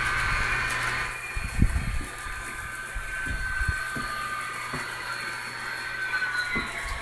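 Model train diesel locomotive running along the layout track: a steady electric-motor whine over a low hum, its pitch sagging slightly near the end, with a few short low knocks.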